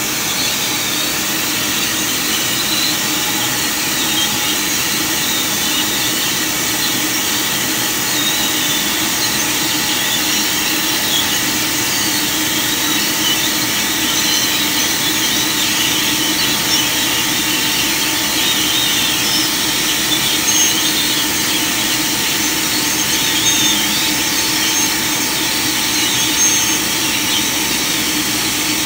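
CNC laser cutting machine cutting through 12 mm steel plate: a steady hiss with a steady hum beneath it.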